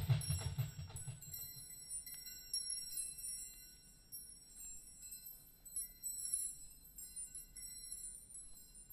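Chimes ringing in many short, high, overlapping tones, with a deep drum beat fading out in the first second.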